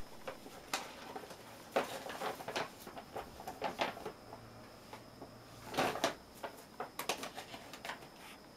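Paper shopping bag rustling and crinkling in irregular bursts as a cat pushes its head into it and paws at it, loudest about two seconds in and again about six seconds in.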